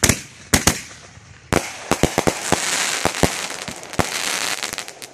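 Consumer firework mortar going off at close range: a dozen or so sharp bangs in quick, uneven succession, with a hissing crackle through the middle seconds.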